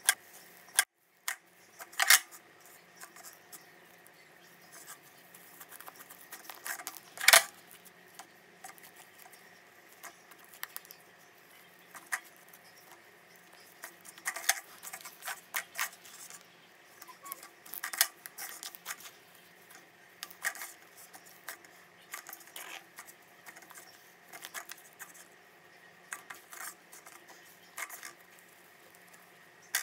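Soft slime being squeezed, folded and stretched by hand: irregular sticky pops, clicks and crackles, with a few louder pops about two, seven and eighteen seconds in.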